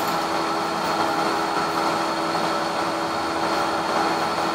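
A steady mechanical hum and hiss with a few held tones, unchanging throughout.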